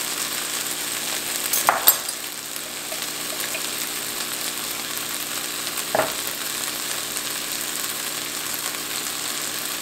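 Chicken pieces frying in butter in a pan, a steady sizzle throughout. A utensil clicks against the pan a couple of times about two seconds in and once near six seconds, while minced garlic is spooned in.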